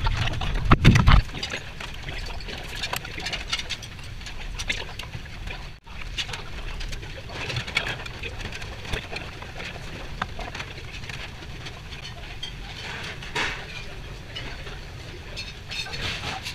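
Busy commercial galley ambience: a steady low hum of kitchen ventilation and machinery with scattered clinks and knocks of plates and utensils, loudest in the first second.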